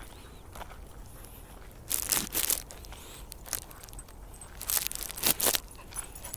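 Footsteps crunching on a gravel trail, in two short runs of crunches about two and five seconds in.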